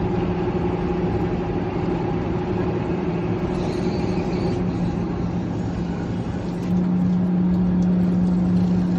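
Steady machinery running with a constant low hum and a noisy whir, growing louder about seven seconds in.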